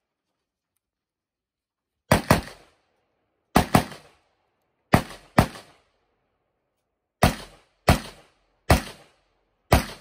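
Custom-built AR-style rifle on an Aero Precision receiver firing ten shots. Three quick pairs come in the first half, then four more shots at a slower pace, each ending in a short ring.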